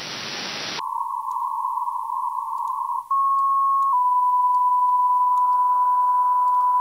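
Audio from an RTL-SDR receiver in SDR# software: wide static hiss cuts off under a second in, leaving a narrow band of hiss through the CW filter. About three seconds in a steady beep comes in and settles near 1 kHz. It is the beat tone of an unmodulated carrier near 57.6 MHz received in CW mode, and the hiss around it broadens as the filter is widened.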